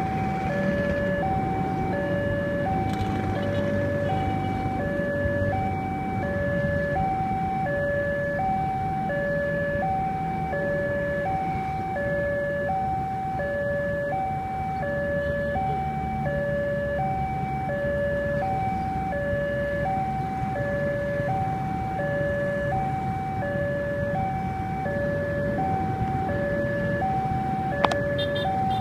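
Railway level-crossing warning alarm sounding a steady two-tone signal, a high and a low tone alternating about once every 1.3 seconds, warning of an approaching train while the barrier is down. Motorcycle engines idle underneath, and there is a single sharp click near the end.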